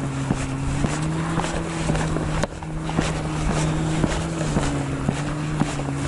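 Footsteps at a steady walking pace, about two a second, over the steady hum of a running motor whose pitch wavers slightly.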